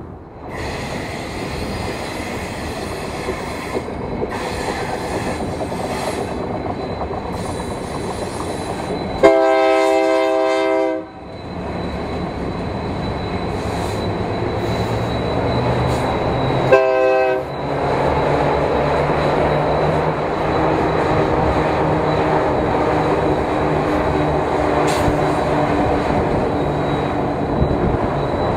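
Union Pacific diesel locomotives hauling a double-stack container train, with a steady rumble of engines and wheels on the rails. A long horn blast, the loudest sound, comes about nine seconds in, and a short one follows about seventeen seconds in.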